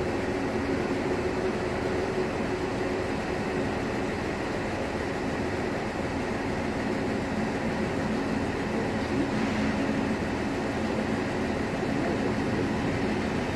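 ICE high-speed electric train running past the platform: a steady rumble of wheels on rails, with a low hum over it.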